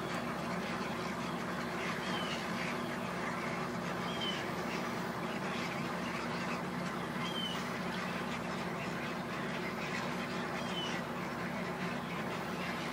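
Thousands of egrets at a roost calling at once: a continuous, dense din of overlapping quack-like croaks and squawks. A short, high, falling note cuts through the din four times.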